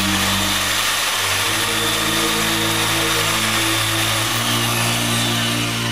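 Handheld electric drill running steadily, spinning a maintenance-kit cleaning brush inside the barrel of a heavy-duty soldering iron to scour out the tip-shank bore. A steady high whine over a rushing scrub.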